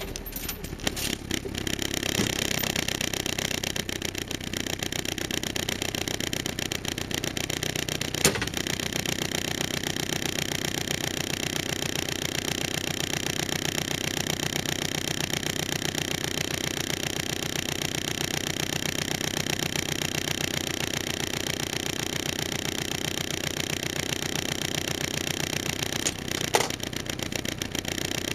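Land Rover Series III engine idling steadily while the vehicle stands still, with a single sharp clunk about eight seconds in and another near the end.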